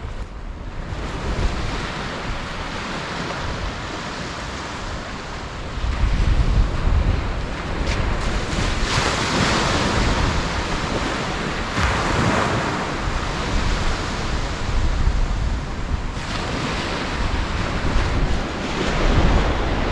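Surf breaking on a sandy beach with strong gusting wind buffeting the microphone, the low rumble of the gusts swelling louder about six seconds in and again near the end.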